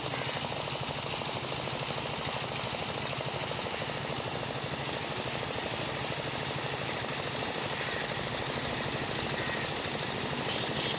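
A water pump's engine running steadily with a rapid, even throb, while the pump's outlet pours a jet of water into the pond with a steady hiss.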